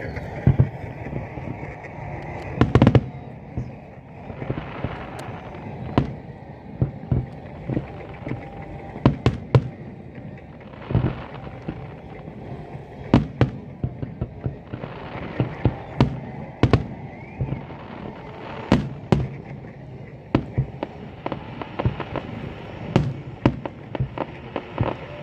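A fireworks display: aerial shells bursting one after another at irregular intervals, sharp bangs with a cluster of the loudest about three seconds in, over a steady background hum of the crowd.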